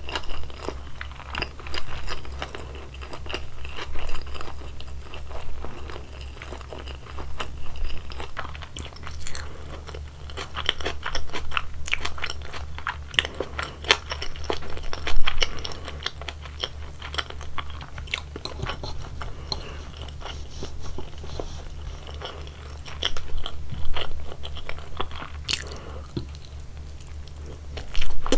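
Close-miked chewing and biting of sushi: wet clicking and crackling mouth sounds that come in bursts every few seconds. A steady low hum sits underneath.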